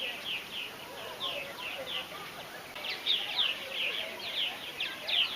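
A colony of purple martins calling: many short, rapid, downward-slurred chirps overlapping into a busy chatter, growing denser about halfway through.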